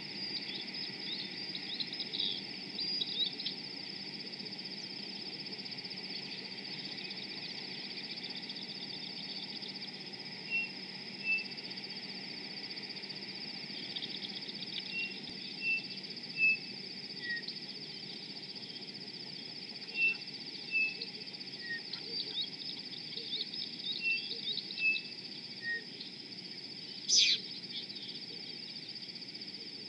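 Scattered short bird chirps and whistled notes, often in pairs, with one louder, sharper falling call near the end, over a steady high-pitched hum.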